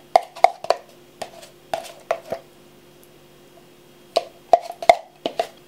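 Kitchen knife striking a cutting board: three quick runs of sharp clacks, with a pause of about two seconds before the last run.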